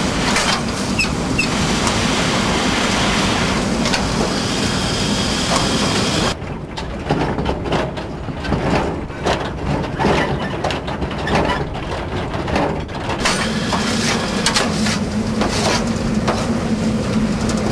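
Narrow-gauge steam locomotive running with a train of clay wagons, heard from on board: a steady rushing of steam and running gear over a low hum. About six seconds in, this gives way to a quieter rattle and irregular knocking of the wagons rolling on the track. The locomotive's steady rush returns a few seconds before the end.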